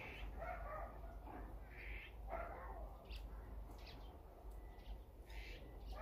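Azure-winged magpies giving a string of short, harsh calls in quick succession.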